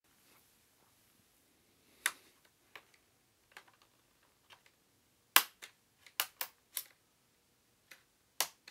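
Plastic clips of a Sony VAIO VPCF2 laptop's display bezel snapping loose as the bezel is pried off: about a dozen sharp clicks and pops, the loudest about halfway through, with a quick run of them soon after.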